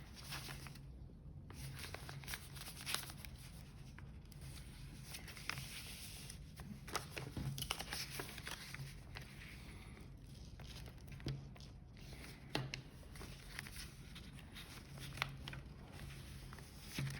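Faint rustling and crinkling of origami paper, with scattered small ticks, as glued paper flaps are handled and slid into place. A steady low hum sits underneath.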